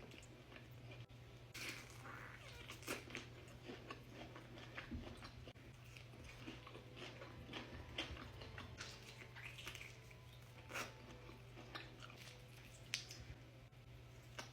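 A person chewing and biting food close to the microphone: soft, irregular wet smacks and clicks of the mouth, over a faint steady low hum.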